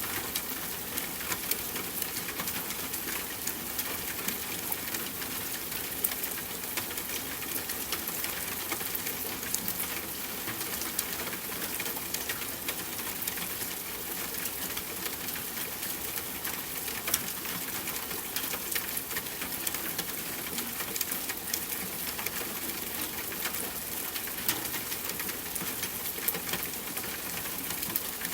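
Steady soft rainfall: an even hiss of rain with many separate drop hits throughout, and a few louder single drops now and then.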